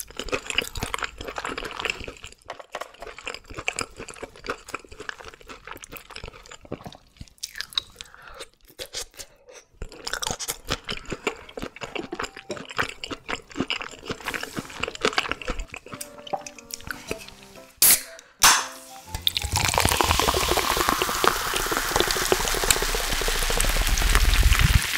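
Close-up chewing and crunching of red sea bream sashimi, in irregular wet clicks. About 18 seconds in there are two sharp clicks, a drink can being opened. Then a clear carbonated drink is poured into a glass, fizzing and hissing steadily.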